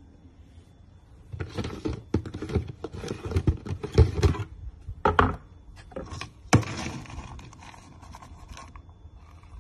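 A plastic dog-food bin being handled: a series of sharp knocks and scrapes as the lid is worked open, then a plastic scoop dug into dry kibble, quieter near the end.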